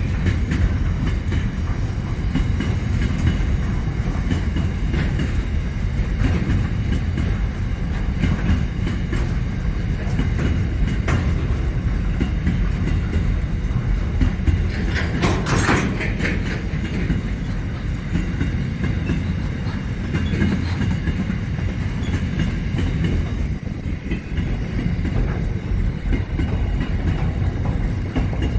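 Freight train wagons rolling past: a steady low rumble with the wheels clicking over the rail joints, and a short, sharper burst of metallic noise about halfway through.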